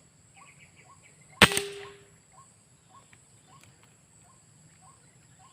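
A single sharp air rifle shot about a second and a half in, fired at a white-breasted waterhen. Behind it, faint short calls repeat about every two-thirds of a second over a steady high insect drone.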